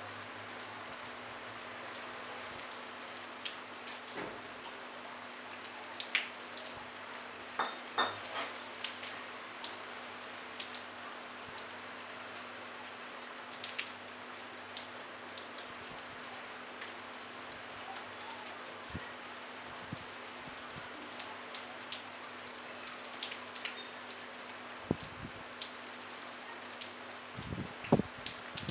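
Light rain falling on a rooftop and brick wall: a steady soft hiss with individual drops ticking close by, several louder drop hits coming together near the end.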